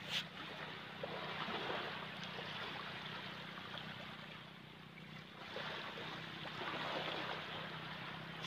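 Shallow seawater sloshing and washing over a sandy tidal flat, swelling twice, with a steady low hum underneath.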